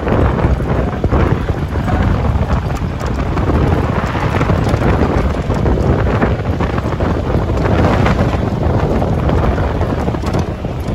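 Wind buffeting the microphone over the steady rumble of a vehicle driving on a rough gravel dirt road, with tyres crunching and stones knocking now and then.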